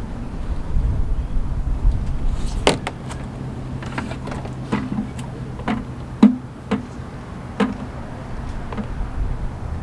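Sharp, separate clicks and clacks of a socket ratchet and tools being handled while loosening the oil drain bolt on a Tohatsu 9.8 four-stroke outboard, about ten of them spread over the second half, one every half second to a second.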